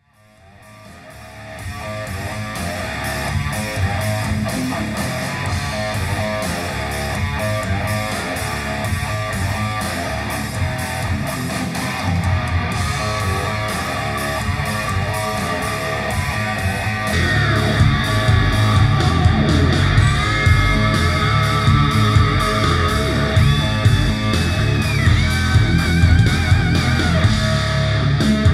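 Guitar-driven rock music played back through one pair of Microlab 2.0 bookshelf speakers, heard in the room for a sound and bass test. It fades in over the first two seconds and gets louder about 17 seconds in, where gliding lead lines come in over a heavy bass line.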